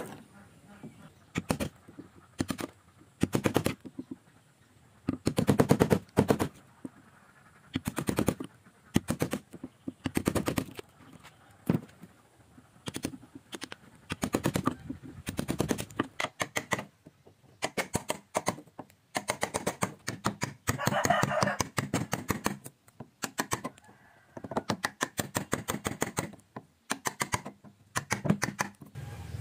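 Steel wood chisel cutting into a hardwood beam to clear out a joint: bursts of rapid knocking and scraping about a second long, with short pauses between, as chips split away.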